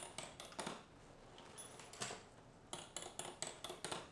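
Glass marbles running down a plastic Makeway wall-mounted marble run: a string of light clicks and clacks as they hop across rail joints and connectors, bunched near the start and again from about three seconds in. A faint short high ring about a second and a half in, as a marble passes the small bell.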